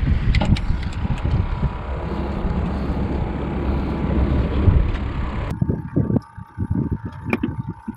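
Wind buffeting the microphone out on open water: a steady low rushing that cuts off abruptly about five and a half seconds in. What follows is quieter, with a few scattered soft knocks.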